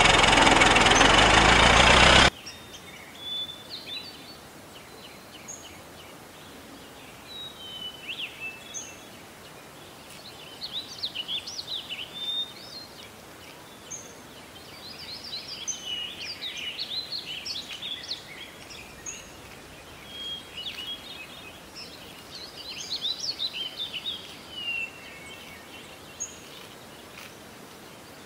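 A loud, engine-like noise for about the first two seconds, cutting off abruptly. Then birds chirping and twittering in repeated bursts of short, quick calls.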